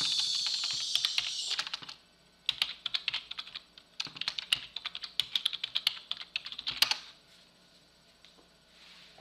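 Typing on a computer keyboard: quick runs of key clicks, with a short pause about two seconds in, stopping about seven seconds in.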